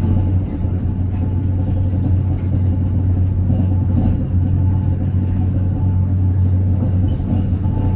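Gornergrat cogwheel train running with a steady low rumble.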